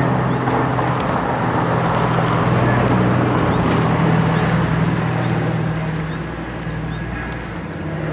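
Twin radial engines of a PBY-5 Catalina flying boat (Pratt & Whitney R-1830 Twin Wasps) droning steadily as it flies overhead, easing off slightly after about six seconds.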